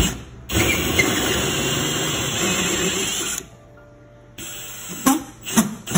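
Cordless drill spinning a hole saw into the wall, cutting steadily for about three seconds and then stopping, followed by a few short bursts near the end.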